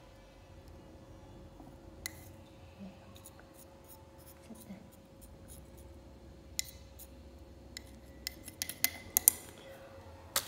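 Scattered light clicks and taps of handling over faint room tone, with a quick run of them near the end.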